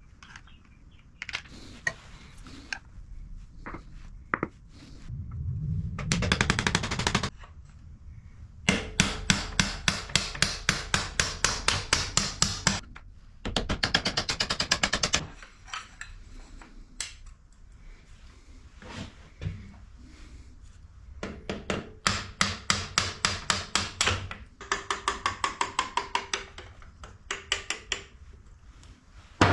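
Workshop tool noise: runs of rapid, even clicks, about five a second, typical of a ratchet wrench working a fastener, with two short bursts of continuous rattling and a few single knocks of metal tools between.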